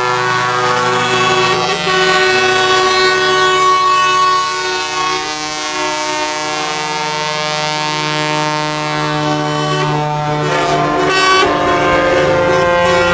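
Several semi-trucks' air horns sounding in long, overlapping blasts, their tones forming chords that shift every few seconds.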